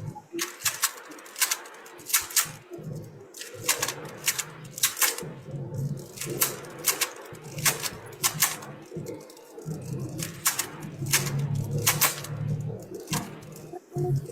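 Irregular sharp clicks, a few a second and often in quick pairs, over a faint low hum.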